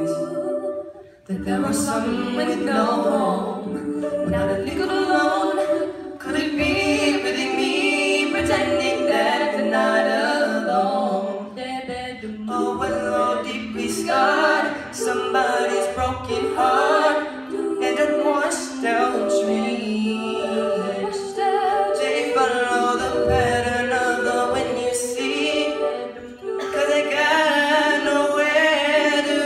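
Middle school a cappella choir singing in harmony, voices holding chords with no instruments, with a brief break about a second in.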